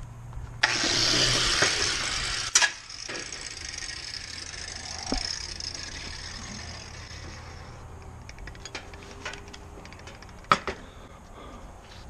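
An electric angle grinder starts the instant it is plugged in with its switch left on. It runs loudly for about two seconds, then cuts off with a sharp click and winds down over several seconds. Scattered clicks of the plug and cord being handled follow, with one loud click near the end.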